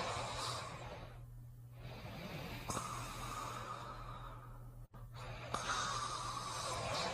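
Slow, heavy breathing of a sleeper, each breath a rough rush of air lasting about two seconds, a new one starting about every three seconds. A steady low hum runs underneath.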